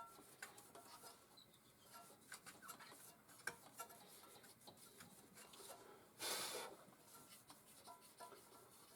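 Faint scattered clicks and taps of small engine parts being handled, with one brief rasp lasting about half a second a little after six seconds in.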